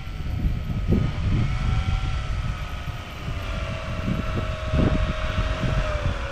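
Heavy wind buffeting the microphone in gusts, over a steady droning tone that slowly falls in pitch.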